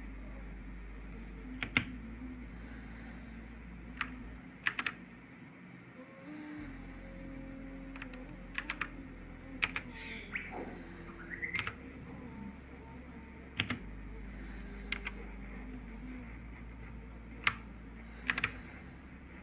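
Keys of a Machenike K500A-B84 mechanical keyboard pressed one at a time: sparse, irregularly spaced clicks, some in quick pairs or threes, over a steady low hum.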